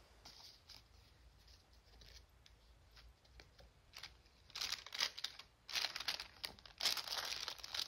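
Rustling and crinkling of a translucent packaging sleeve and a stack of photo prints being handled. Faint at first, it turns into several louder rustles from about halfway through.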